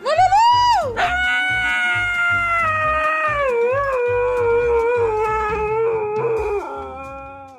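Siberian husky howling: a short howl that rises and falls, then one long howl that slowly sinks in pitch, wavers in the middle and fades out near the end. Background music with a low beat runs underneath.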